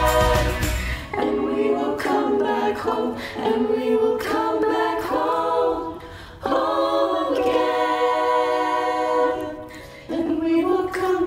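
Student choir singing a cappella: held, blended vocal chords with no accompaniment, pausing briefly about six and ten seconds in. For about the first second, the tail of a backing track with a bass beat is still heard.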